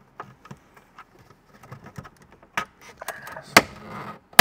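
Small hand-tool clicks and taps on the plastic dash trim of a Ford F-150 as its 7 mm screws are taken out and the top center-stack panel is worked loose. A stretch of plastic scraping comes about three seconds in, and two sharp snaps come near the end.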